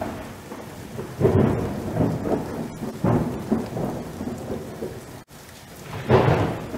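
Thunderstorm: steady rain with rolls of thunder swelling about a second in, again at three seconds and about six seconds in, with a brief dropout just after five seconds.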